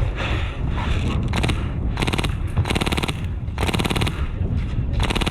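Airsoft guns firing several short full-auto bursts of rapid, evenly spaced shots, each under about half a second, with pauses between.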